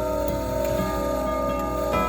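Chime tubes of a 1920s–30s five-tube tubular chime grandfather clock ringing on between strokes of the hour: several overlapping tones that hang on and slowly fade, with the movement ticking lightly underneath.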